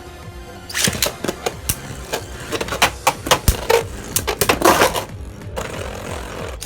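3D-printed Beyblade spinning tops clashing in a plastic stadium: a quick, irregular run of sharp clacks and knocks starting about a second in, dying down after about five seconds to a quieter spinning hum.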